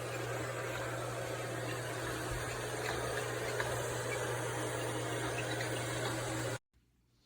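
eufy RoboVac 11S Max robot vacuum running: a steady whir of its suction motor and brushes with a constant low hum. It cuts off abruptly about six and a half seconds in.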